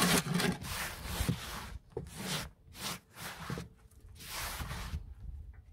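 Compost being scraped and brushed across the bottom of a plastic wheelbarrow onto a flat metal shovel, in about five separate strokes, the first the loudest.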